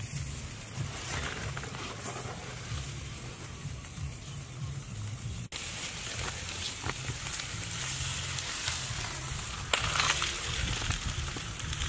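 Whole fish sizzling as it grills over a charcoal fire, a steady hiss, with a sharp click about ten seconds in.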